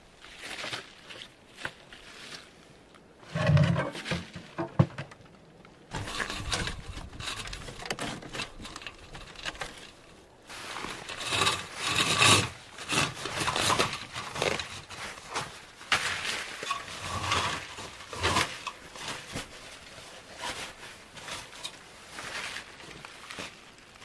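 Close, irregular handling noises: rustling, crinkling and knocking as hands work tent fabric and a flexible aluminium heater duct, with a few heavy thumps about four seconds in.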